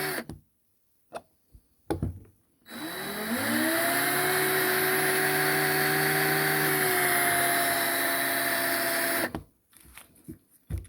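Small hand-held electric drill with a 2 mm bit drilling into a die-cast metal model. It winds down at the start, with a few light knocks. About three seconds in it spins up with a rising whine and runs steadily for about six seconds. It stops near the end, followed by small clicks and taps.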